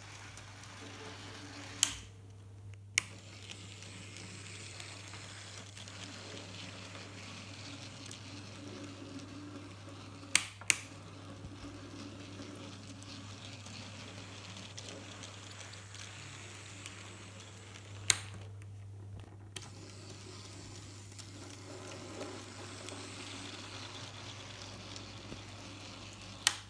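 Graham Farish N gauge Class 3F Jinty model locomotive running along the track with a rake of wagons: the faint, steady whirring hiss of its small electric motor and wheels on the rails, over a steady low hum. A handful of sharp clicks, the loudest sounds, break in at intervals: about two seconds in, twice near the middle, and near the end.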